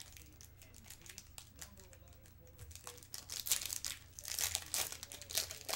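Foil wrapper of a 2014 Bowman Chrome trading-card pack crinkling as it is torn open by hand, the crackling getting louder about three seconds in.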